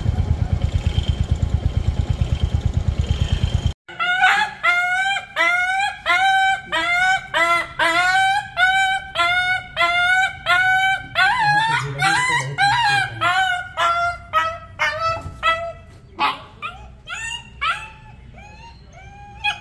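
A puppy with a broken leg yelping and crying out in pain over and over, about two cries a second, as its leg is handled and examined without sedation; the cries grow sparser and weaker near the end. Before the cries, for the first few seconds, a motorcycle engine idles with a fast, even throb that cuts off suddenly.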